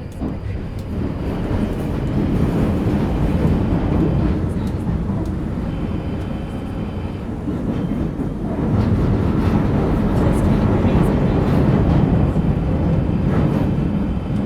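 Northern line Tube train running through a tunnel, heard from inside the carriage: a loud, steady rumble of wheels and running gear that swells about a second in and again past halfway.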